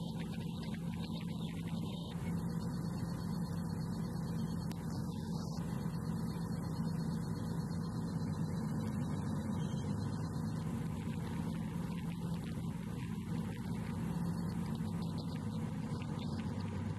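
Steady drone of a light aircraft's engine in cruise, heard from the cockpit as an even hum with no change in pitch.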